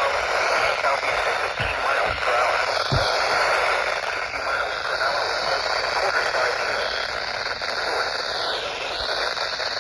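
Steady hiss and static from a weather radio receiver on a weak NOAA Weather Radio signal, with a broadcast voice faint beneath the noise.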